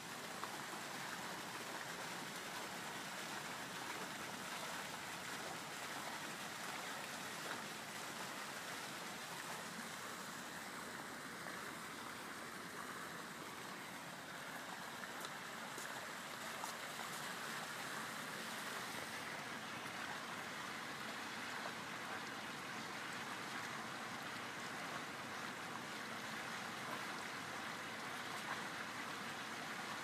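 Steady rushing water noise, even and unbroken, with no voice or music over it.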